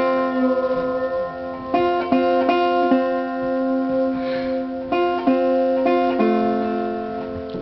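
Guitar being plucked, chords and single notes struck about once a second and left to ring.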